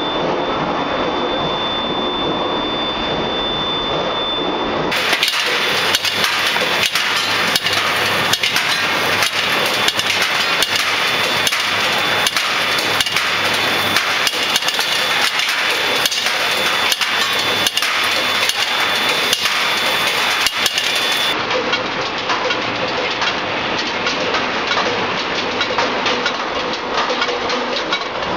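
Skew rolling machine running as it rolls a red-hot steel bar between its rolls. The machine noise is loud and steady, with a high whine through most of it and a rapid run of metallic knocks in the middle.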